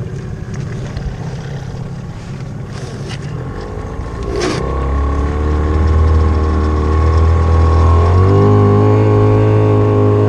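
Motorboat engine running under way over a rush of wind and water. After a click about four and a half seconds in, the engine note becomes steady and strong, then steps up in speed near the end as the throttle is opened.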